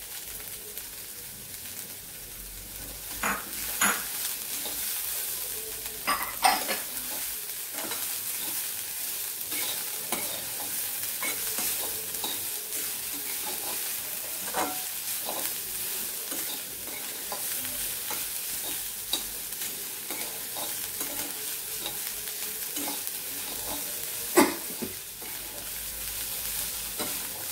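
Shredded cabbage, onion and capsicum stir-frying in a metal kadhai: a steady sizzle, with the metal spatula scraping and knocking against the pan every few seconds. The sharpest knock comes near the end.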